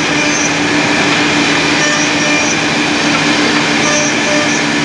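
Multi-spindle CNC mortising machine running steadily, its spindles cutting mortises in wooden rails: an even mechanical noise with a constant hum and a higher steady whine.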